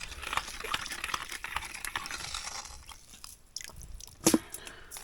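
Rustling, crinkling handling noise for about three seconds, then a single brief louder sound about four seconds in.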